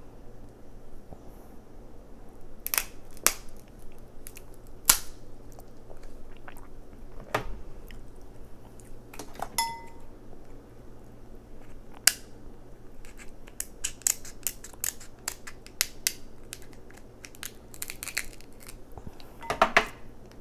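Crab shells being cracked and snapped apart, with many scattered sharp cracks and close-up chewing.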